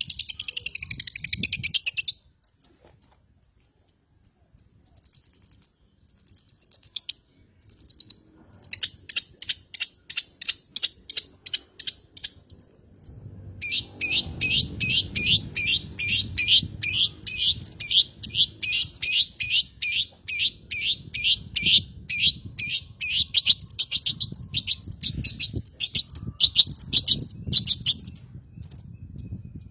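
Long-tailed shrike (cendet) song: long runs of sharp, high chattering notes, about four a second, broken by short pauses. It is played as a lure to set caged shrikes singing.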